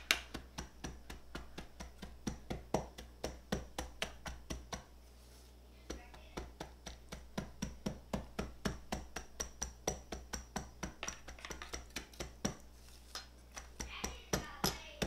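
A glass tamping graham-cracker crumb crust down into a metal springform pan: quick repeated taps and crunchy presses, about three a second, with a short pause about five seconds in.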